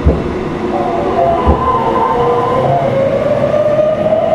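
Meitetsu 3100 series electric train running, heard from motor car Mo 3212: the whine of its VVVF-inverter traction motors rises slowly in pitch as the train gathers speed. Two low thuds sound, one at the start and another about a second and a half in.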